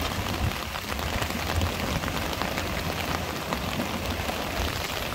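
Steady rain falling, with many close drops pattering on an umbrella held over the microphone, above a low rumble.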